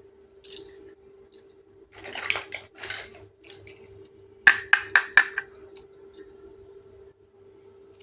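Miniature toy kitchen pieces being handled: a light click, a stretch of rubbing and rustling, then a quick run of about five sharp clinks as small dishes knock together or are set down. A steady low hum runs underneath.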